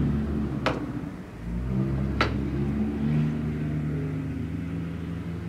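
A low steady humming drone that shifts in pitch a couple of times, with two sharp clicks of a metal fork on dishware, one under a second in and one just after two seconds.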